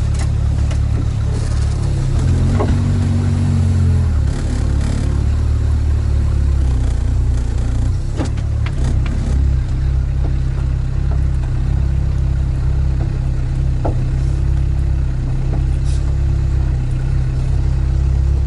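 Sherp all-terrain vehicle's diesel engine running steadily with a loud, low hum, with a few light clicks over it.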